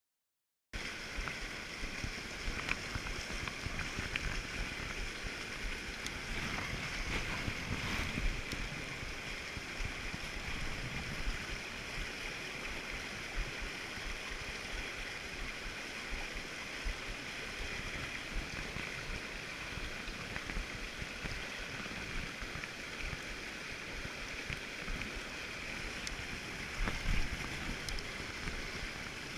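Steady rushing water noise that cuts in just under a second in, with a low rumble underneath.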